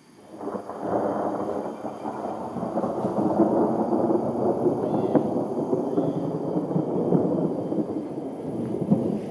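Thunder: a long peal that breaks in suddenly about half a second in and rolls on loudly for several seconds, with a crackling edge.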